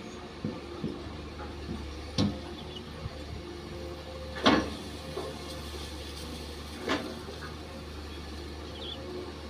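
Hydraulic excavator's diesel engine running steadily while digging. Three sharp knocks come about two and a half seconds apart, and the middle one is the loudest.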